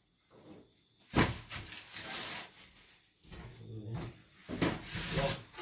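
Flattened cardboard packing cartons being pulled out and dropped onto a wooden workbench: one sharp thump about a second in, then cardboard rustling and scraping.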